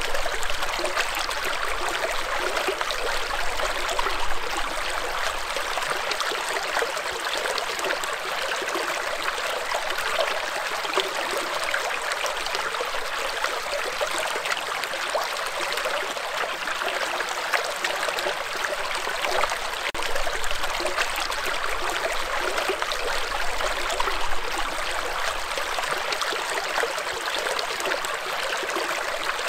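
Shallow rocky stream: water running steadily over and between boulders, with small riffles gurgling and splashing.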